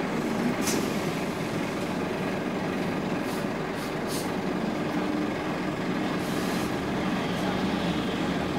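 Scania OmniLink single-deck bus's diesel engine idling steadily, heard from inside the cabin, with a few short hisses in the first half.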